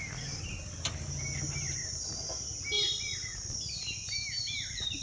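Outdoor background of insects buzzing in a steady high drone while a bird repeats short arched chirps, over a low steady hum. There is a single click about a second in.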